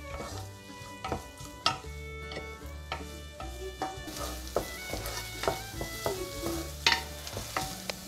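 Wooden spoon stirring diced carrots in butter in a pot, with irregular scrapes and light knocks of the spoon against the pot. Under it the butter sizzles, the sizzle growing stronger about halfway through.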